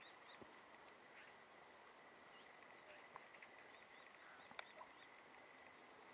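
Near silence of open countryside with faint, short chirping bird calls in small clusters and a faint steady high tone. A single sharp click about four and a half seconds in.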